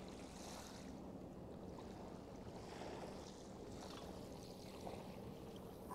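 Faint, steady riverside ambience of water lapping and flowing along the Rhine bank, under a low steady hum.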